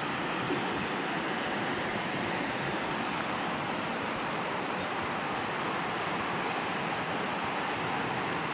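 Shallow rocky river rapids rushing steadily, with a faint high trill repeating every second or so over the water.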